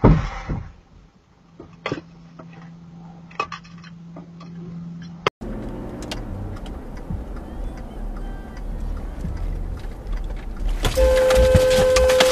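A loud knock at the start with scattered light clicks, then from about five seconds in, steady driving noise inside a car. Near the end a car horn sounds steadily for about a second and a half.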